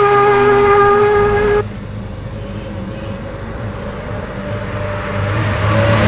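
Racing motorcycle engines at high revs. A steady, high engine note cuts off abruptly about a second and a half in, leaving a quieter low engine hum that grows louder near the end as the next bike approaches.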